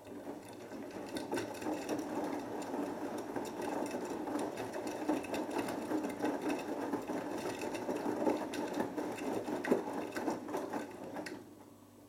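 Beko WMB81445L front-loading washing machine's drum tumbling a wet load on its Cotton 60°C programme: a steady motor-driven churning with many small knocks and splashes from laundry dropping inside the drum, which stops about eleven seconds in.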